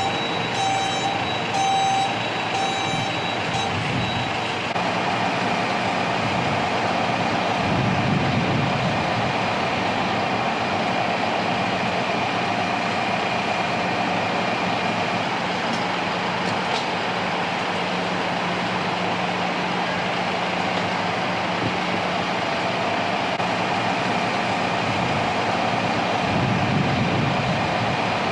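A large vehicle's reversing alarm beeps repeatedly and stops after about three and a half seconds. After that comes a steady engine hum from a heavy vehicle running.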